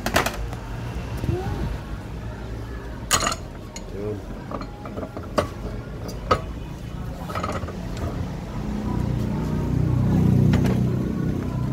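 Sharp metal knocks and clinks, about six spread out, as a car air-conditioning compressor is shifted and re-clamped in a steel bench vise. A low rumble swells near the end.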